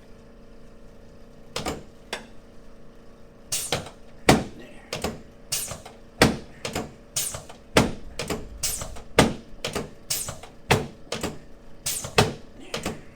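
A quick, uneven series of over twenty sharp clicks, about two a second, from chiropractic adjustments of the sternoclavicular and costosternal joints of the chest.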